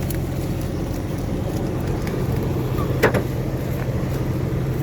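Off-road rig's engine running steadily at idle, with a single sharp knock about three seconds in.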